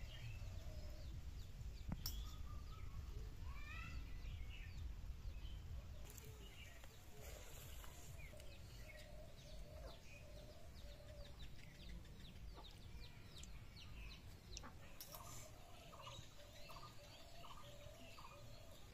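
Chickens clucking on and off, ending in a run of short, evenly spaced clucks about two a second, with small birds chirping high above them. A low rumble sits under the first few seconds.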